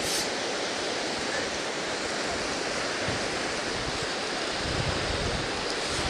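Black Sea surf after a storm washing onto a sandy beach, a steady wash of waves. From a little past the middle, gusts of wind rumble on the microphone.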